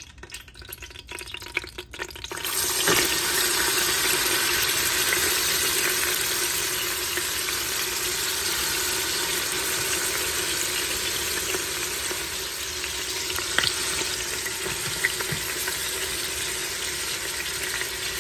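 Marinated oxtail pieces sizzling as they brown in hot vegetable oil in an Instant Pot's stainless inner pot on the sauté setting. The steady frying hiss starts suddenly about two and a half seconds in, as the meat goes into the oil, with a few sharp clicks of the utensil against the pot.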